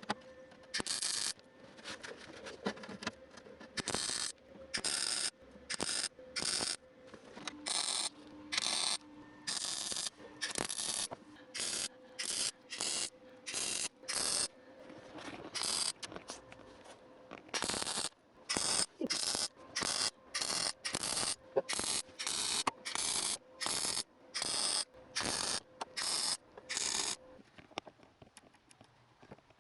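MIG welder tacking and plug-welding thin sheet steel: dozens of brief arc bursts, one or two a second with short pauses between, over a faint steady hum. The bursts stop a couple of seconds before the end.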